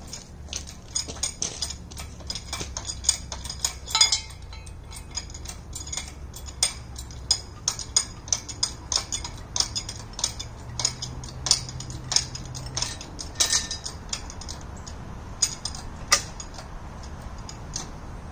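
Hand-pumped hydraulic engine hoist being jacked up: a string of sharp metal clicks and clinks from the pump handle and chain, irregular, one to three a second, as the boom takes up the strain of a fence post set in concrete.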